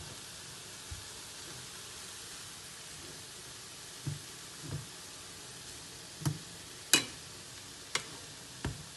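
Samosa filling of onion, carrot and potato sizzling steadily as it fries in a pan, with a utensil knocking against the pan several times as it is stirred, the sharpest knock about seven seconds in.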